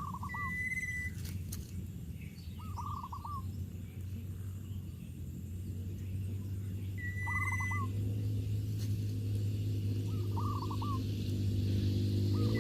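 Birds calling: a short cluster of quick falling notes repeats about every two to three seconds, and a short steady whistle comes twice. Under them runs a low steady hum that grows louder in the second half.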